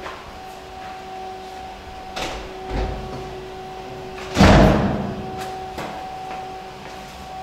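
An apartment door slams shut about four and a half seconds in, the bang echoing in the stairwell. A smaller thump and a few clicks come before it. A steady hum runs underneath.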